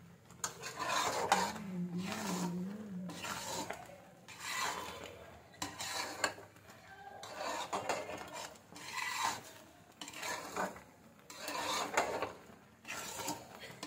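A spoon scraping around a cooking pan, stirring melted jaggery syrup as it cooks down for sesame laddoos, in repeated rasping strokes about once a second.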